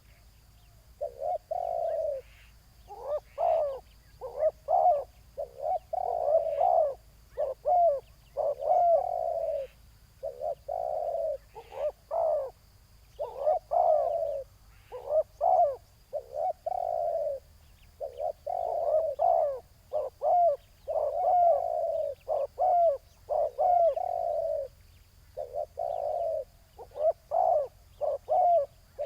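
Spotted doves cooing continuously, phrase after phrase with short gaps between them.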